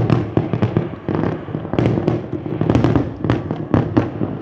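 Big fireworks display: a continuous barrage of aerial shells bursting, many overlapping bangs a second over a steady rumble.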